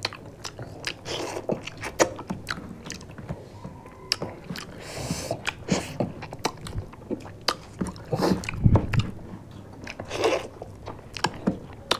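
Close-up eating sounds of people biting into and chewing chicken pieces, a dense run of many short sharp mouth clicks and smacks, with a few louder chews near the middle and toward the end.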